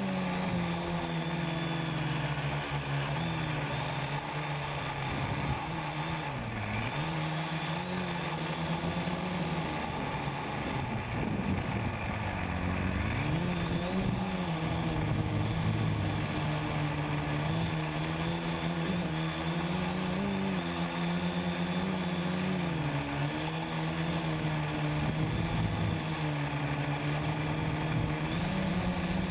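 Quadcopter's electric motors and propellers buzzing, heard close up from on board, the pitch rising and falling as the throttle changes, with two deep swings in pitch, over a steady hiss.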